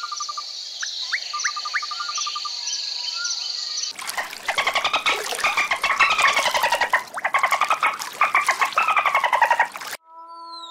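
Birds chirping and trilling, then from about four seconds in a dolphin's rapid clicking and squealing whistles, the loudest part; near the end a wolf begins a long howl.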